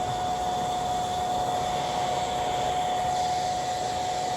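Hand-held hair dryer running steadily, a constant rush of air with a high steady whine from its motor.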